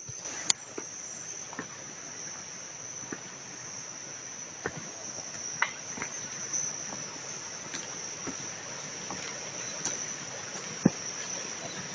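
Steady high-pitched drone of insects in tropical forest, with scattered sharp clicks, the loudest about half a second in and near the end.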